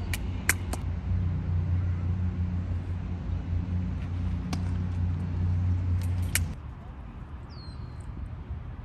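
A loud, steady low rumble that cuts off about six and a half seconds in, with several short sharp clicks over it.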